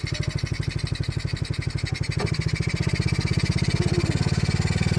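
Single-cylinder four-stroke engine from a Honda Supra X 125 motorcycle running with a steady rapid firing pulse, getting a little louder about two seconds in. A single knock sounds around the same moment.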